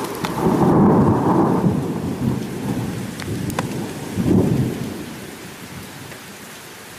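Thunder rumbling over steady rain: a long rumble in the first two seconds and another about four seconds in, with a few sharp crackles, then the thunder fades out and only the rain's even hiss is left.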